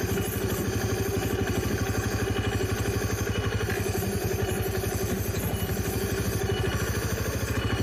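Trail motorcycle engine running at a steady speed, with a fast, even pulsing beat and no revving.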